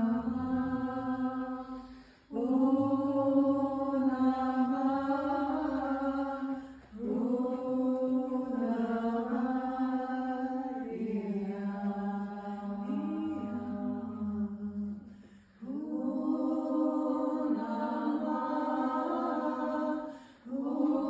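A woman singing a slow melody alone and unaccompanied, in long held notes that run in phrases of several seconds with short breaths between them. The tune steps down to a lower note about halfway through.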